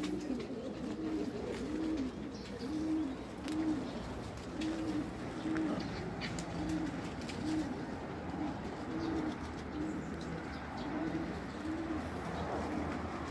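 A pigeon cooing over and over, about three low coos every two seconds, each one rising and falling in pitch.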